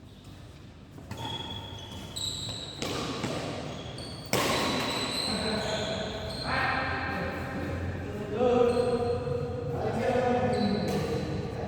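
Badminton being played in a hall: several sharp racket hits on the shuttlecock, some with short high squeaks, and voices calling out in the second half.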